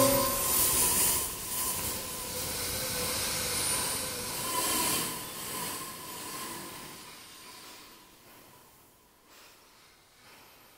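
Airy, hissing noise with a faint held tone, fading out over several seconds, as a texture in a contemporary piece for bass recorder, vibraphone, keyboard and electronics.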